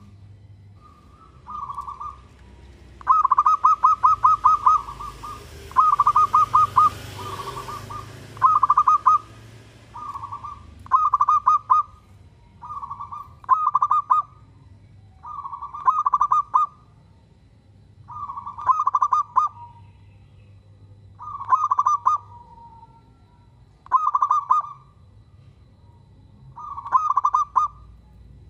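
Zebra dove (perkutut) cooing: phrases of quick, repeated notes, each about a second long, coming again every two to three seconds and closest together in the first third.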